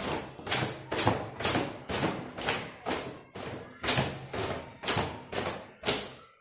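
Long wet hair being beaten dry with a towel: steady thumps about two a second, stopping suddenly near the end.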